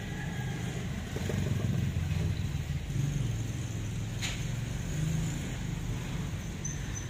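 A motor vehicle engine running with a steady low rumble that swells a little between one and three seconds in. A single sharp click about four seconds in.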